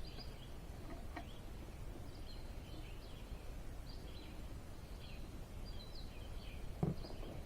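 Faint bird chirps repeating over a low, steady background noise, with a couple of soft knocks from work at hand.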